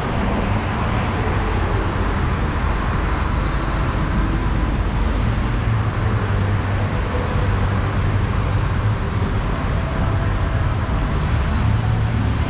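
Steady city street ambience: a continuous hum of road traffic with low rumble, unbroken and even in level.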